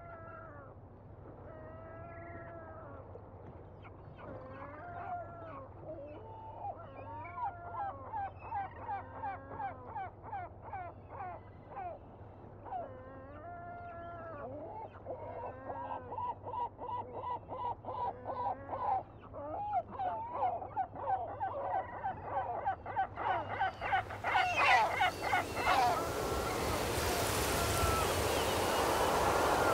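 Honking calls of a flock of birds, like geese: single arching calls about once a second at first, growing denser, overlapping and louder. A loud rushing noise builds up over the last few seconds.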